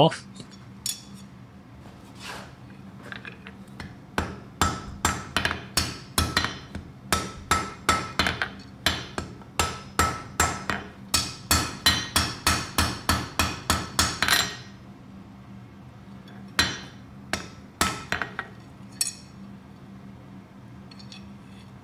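Blacksmith's hammer striking a small iron pendant, reworking it so its centre line runs straight. A few single blows come first, then a steady run of about two to three blows a second for some ten seconds, then a few more scattered blows.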